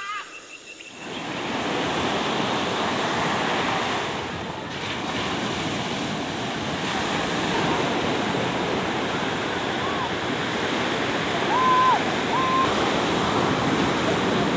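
A few bird calls in the first second, then the steady rush of sea surf breaking on a beach, with a few short, high calls near the end.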